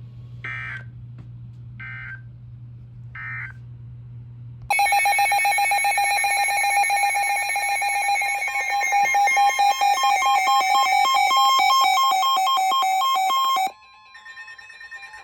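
Three short warbling bursts of Emergency Alert System digital data, about a second apart, over a steady low hum. Then the loud, harsh two-tone EAS attention signal sounds for about nine seconds and cuts off abruptly, marking the start of a new weather-radio alert.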